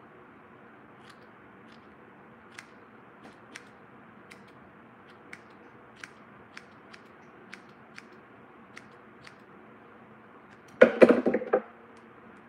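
Shears snipping through a ponytail hair piece: about fifteen short, crisp snips at an uneven pace. A brief, much louder burst of sound comes near the end.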